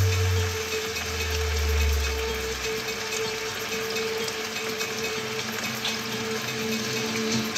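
A low bass note of background music dies away over the first three seconds, leaving a steady faint hum with light kitchen clatter.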